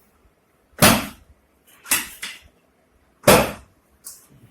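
Four sudden thumps or knocks. The loudest comes about a second in and another near the end, with two smaller ones close together between them.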